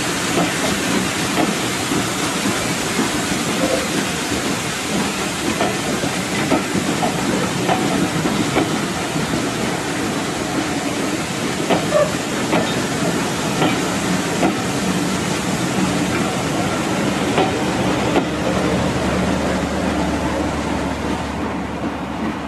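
Passenger coaches of a steam-hauled train rolling past close by: a steady rush of wheels on rail with frequent clicks over the rail joints.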